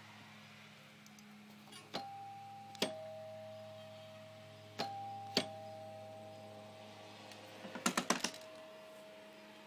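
Two-tone ding-dong doorbell chime rung twice, each ring a higher note then a lower one that rings on. Near the end comes a quick rattle of clicks from the trailer door's latch as the door is opened.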